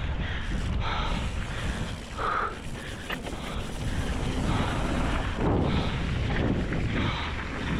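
Mountain bike descending a dirt trail: wind buffeting the microphone over the rumble of tyres and the bike rattling, with a brief higher-pitched sound about two seconds in.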